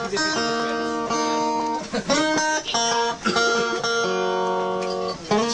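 Live music with guitar, a run of long, evenly held notes that change about every second or two.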